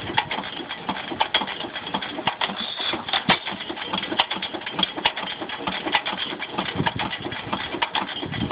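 8 hp Waterloo Boy hit-and-miss stationary gas engine idling with no load, its flywheels turning. Uneven sharp knocks and clatter, with a stronger beat about once a second.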